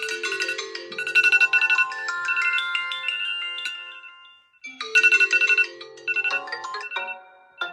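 Phone ringtone: a bright chiming melody of quick repeated notes. The phrase stops about four and a half seconds in and starts over just after.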